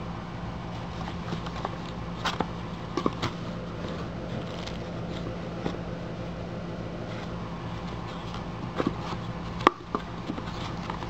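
Cardboard box, paper sleeve and plastic packaging being handled: scattered light taps and rustles, the loudest a sharp knock about two-thirds of the way in, over a steady low hum.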